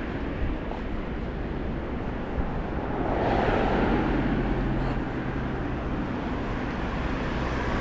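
Steady city street traffic noise, swelling for a moment about three seconds in as a vehicle goes by, with a low engine hum under it after that.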